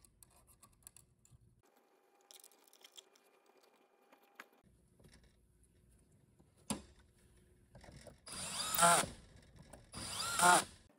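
Cordless drill-driver on a very low clutch setting running small screws into a transmission valve body's end cover, snugging them rather than tightening. Two short runs near the end, each with the motor whine rising and falling.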